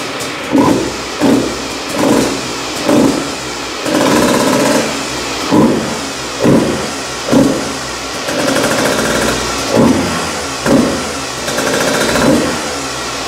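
2023 KTM 150 EXC TBI's single-cylinder two-stroke engine, revved through its exhaust in quick throttle blips about once a second. Three longer held revs come in between the blips.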